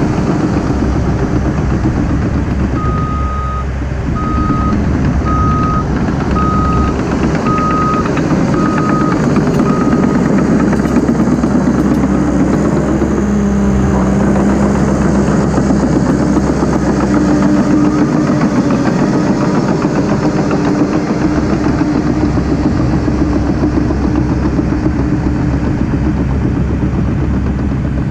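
Cat D3 crawler dozer's diesel engine working under load as it pushes and backs up, its reversing alarm beeping about once a second for several seconds near the start. Around the middle the engine note drops, then rises again as it pulls away.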